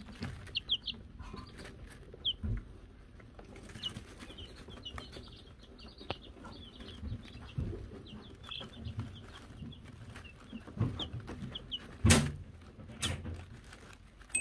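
Wyandotte chicks peeping, with scattered light knocks. Near the end a chick strikes the small hanging hand bell, one sharp clang that is the loudest sound.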